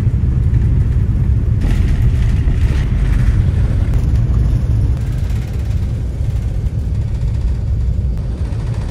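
Cabin noise inside an Airbus A380 climbing just after takeoff: a loud, steady low rumble of the four jet engines and airflow, easing slightly near the end.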